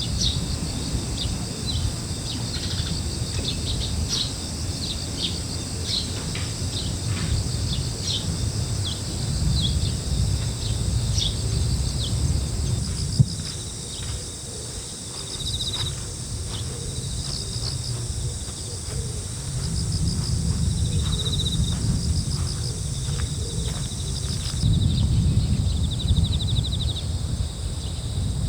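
Sea surf and wind rumbling low, swelling and easing every several seconds. Insects trill steadily over it, with many short chirps in the first half and a single sharp click about thirteen seconds in.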